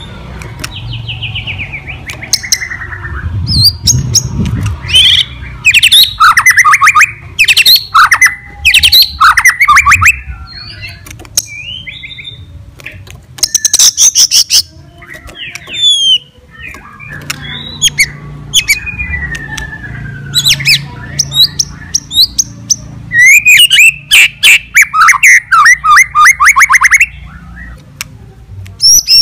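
White-rumped shama (murai batu) singing loudly in bursts with short pauses. The song is varied: clear whistled glides, fast trilled runs and harsh rattling notes. It is the nonstop 'gacor' song of a fighting-type male, used as a provoking song for other shamas.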